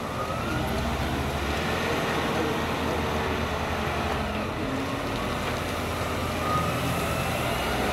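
Engine of a large marina boat forklift running steadily as it carries a boat on its forks, heard from a distance with a constant low hum.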